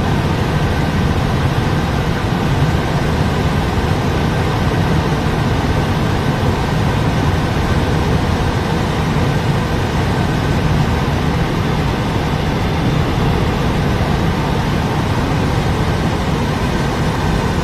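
Steady road and engine noise heard inside a moving car.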